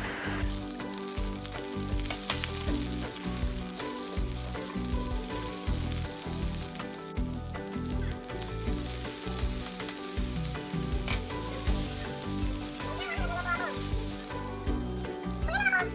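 Onion and ginger sautéing in hot oil in a pan, sizzling steadily.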